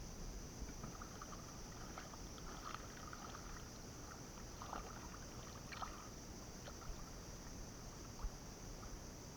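Water sloshing with light, scattered splashes and small knocks in shallow water, over a steady high-pitched hiss and a low rumble.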